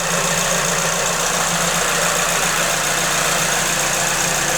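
Supercharged Suzuki Swift Sport ZC31S 1.6-litre four-cylinder engine idling steadily, with the supercharger and its V-belt drive turning. The sound is the same throughout.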